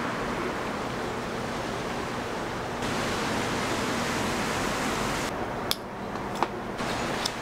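Steady hiss of background noise that changes abruptly in character about three seconds in and again about five seconds in, with three short sharp clicks in the last two seconds.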